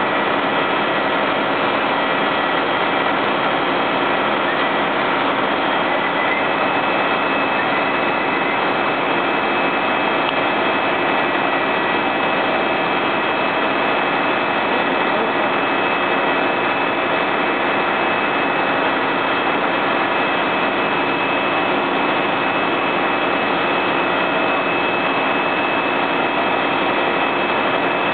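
Fire truck engine running steadily, driving the ladder and water pump: a loud, unbroken drone with a few steady high whining tones through it.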